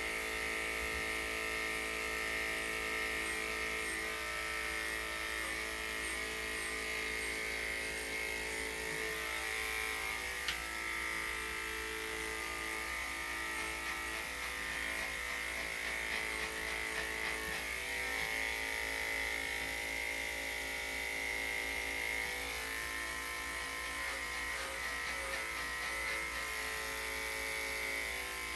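Electric dog grooming clippers running steadily as they shave a dog's coat, a constant buzzing hum. One brief click about ten seconds in.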